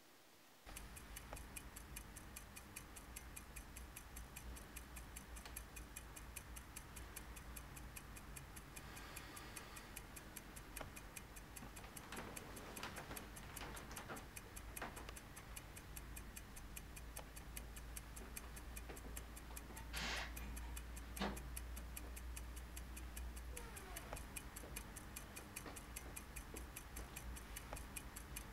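Clock ticking steadily, starting just under a second in, over a low hum. A brief louder rustle-like noise and a sharp knock come about twenty seconds in.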